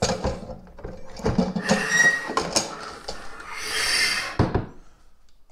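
Inner unit of an OASE Bitron C UV clarifier, the quartz glass sleeve with its spiral wiper, being slid out of its black plastic housing: plastic scraping and knocking, with a short squeak about two seconds in, a rasping scrape near four seconds and a sharp knock just after.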